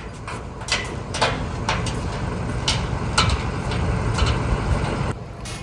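Irregular knocks and clatter from cows' hooves and bodies against a livestock trailer as dry cows are loaded, over a steady low rumble.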